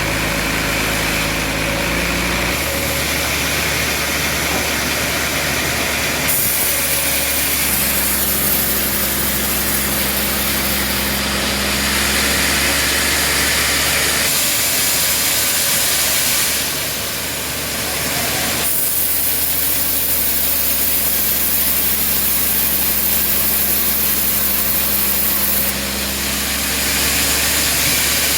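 Band sawmill running, its engine droning steadily while the blade saws through a trembesi log, with a hiss of cutting. The sound changes abruptly every few seconds.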